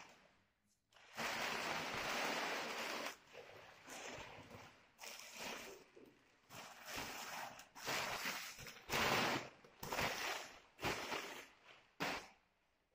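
Brown paper wrapping crinkling and rustling in irregular bursts of a second or two as it is pulled off an engine by hand.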